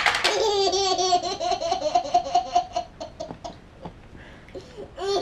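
A baby laughing: a short breathy burst, then a belly laugh in a run of quick, high-pitched pulses for about two and a half seconds, fading to softer sounds, with a new laugh starting near the end.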